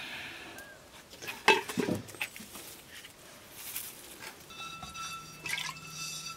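Knocks and clatter as firewood branches and cooking pots are handled at a wood fire: a loud clatter about a second and a half in, then scattered light clicks. A faint steady tone comes in over the last second or so.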